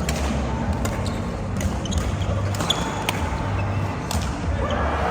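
Badminton rally: sharp racket strikes on the shuttlecock at irregular intervals, roughly once a second, over a steady low hum.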